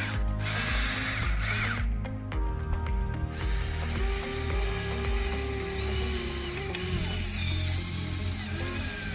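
Huina 1/14 RC excavator's small motors and gears whirring and ratcheting as the machine works, the whir stopping a few seconds in. Background music runs underneath.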